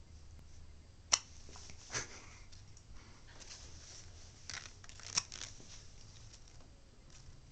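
A five-month-old baby hiccuping: short, sharp hiccups, one about a second in and another just past the middle, about four seconds apart, with a softer little sound and faint rustling between.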